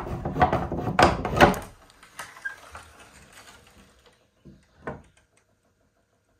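A rusty iron barrel bolt on an old wooden plank door is slid back and the door is opened: a rattling metal clatter for about a second and a half, then a few faint knocks.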